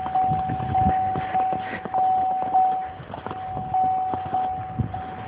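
A car's warning chime: a steady high tone that pulses about once every 0.6 seconds, breaking off briefly about three seconds in. Irregular low rustling and thumps run underneath.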